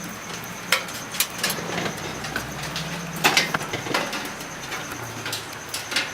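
Irregular sharp clicks and knocks of desktop computer parts being handled during disassembly, the loudest cluster about three seconds in, over a low steady hum.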